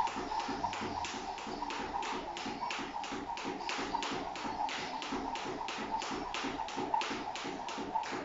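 Jump rope skipping on a tiled floor: the rope clicking against the tiles and trainers landing, in a quick steady rhythm of about four strikes a second.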